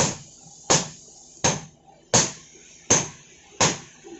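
Sledgehammer blows on a red-hot knife blade held on an anvil during hand forging: six sharp, evenly spaced strikes, about one every three-quarters of a second.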